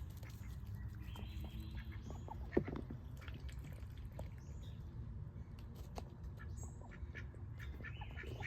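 Domestic duck hens making soft, scattered quacking calls over a low steady rumble, with one sharp knock about two and a half seconds in.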